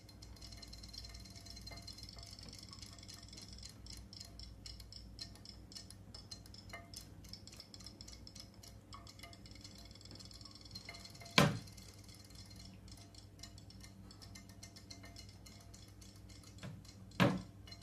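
A kitten pawing at a glass bowl of water with toy fish, giving faint light ticking over a low steady hum, then one sharp clink against the glass a little past the middle and two more close together near the end.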